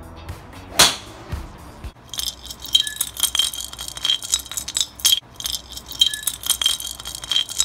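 One sharp club strike about a second in. Then, from about two seconds, a golf driver head shaken in short spells gives a fast metallic rattle with a ringing tinkle, the sign of something loose inside the clubhead.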